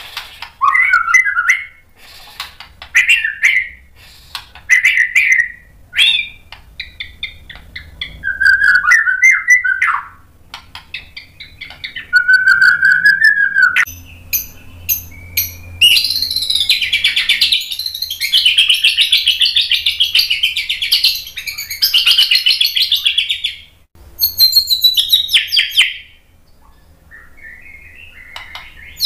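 White-rumped shama singing: short whistled phrases at first, then about halfway a long, loud run of rapid trills and chatter lasting several seconds, and another shorter burst a little later.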